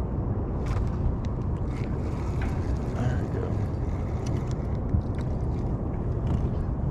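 Steady low rumble of wind buffeting the microphone on open water, with a few faint clicks.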